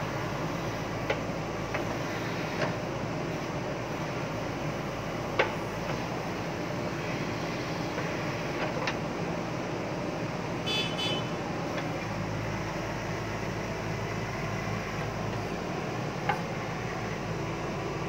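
JCB backhoe loader's diesel engine running steadily as the backhoe digs, with a few sharp clanks from the arm and bucket, the loudest about five seconds in. A brief high-pitched tone sounds near the middle.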